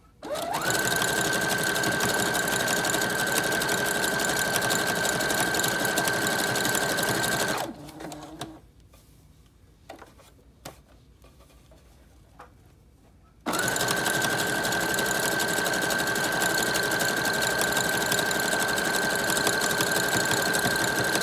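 Brother electric sewing machine running fast on a zigzag stitch through hair wefts, with a steady high motor whine that rises as it starts. It runs for about seven and a half seconds, stops for about six seconds with only a few small clicks, then starts again and runs on.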